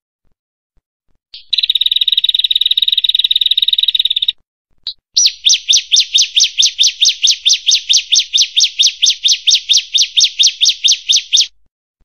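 Prenjak (tailorbird) calling: a fast, dry trill lasting about three seconds, then after a short pause a long run of quick, falling whistled notes, about five a second.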